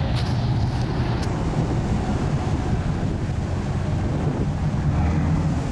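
Steady low rumble of a passenger ferry's engine under way, mixed with wind buffeting the microphone.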